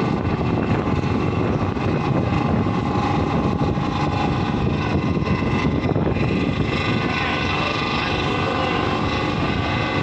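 River ro-ro ferry under way at about 14 knots: a steady drone of its engines mixed with rushing wind and water on the open deck, with a few faint steady tones running through it.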